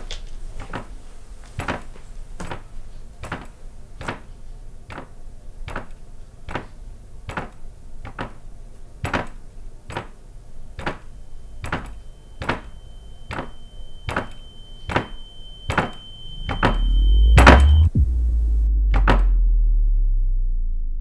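Film sound design: a steady ticking, a little more than one tick a second. About halfway a thin high ringing tone joins it, then a low rumble swells to a loud hit near the end and leaves a low drone that fades away.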